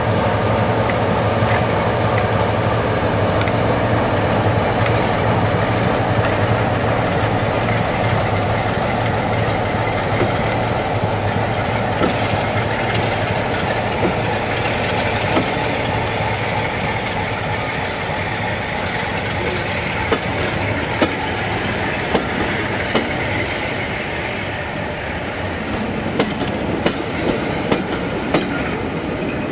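Class 47 diesel locomotive passing close by, its Sulzer twin-bank engine giving a steady low drone that fades as it draws away. Coaches follow, their wheels clicking over rail joints more and more often toward the end.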